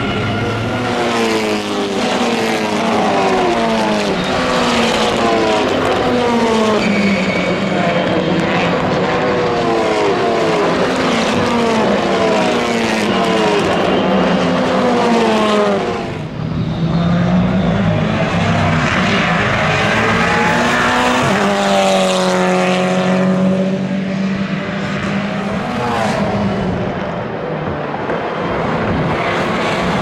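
Lynk & Co 03 TCR touring cars' turbocharged four-cylinder engines at racing speed, the engine note climbing and dropping again and again as they shift through the gears. The sound drops briefly about halfway through, and a few seconds later a steadier held note sounds before the changing note returns.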